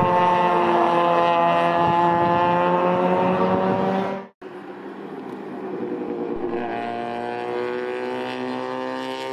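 1968 Mazda Cosmo Sport race car's 10A two-rotor rotary engine running hard at high revs, its pitch steady and falling slightly. The sound cuts off abruptly a little over four seconds in, then a quieter engine note comes back and climbs gently near the end.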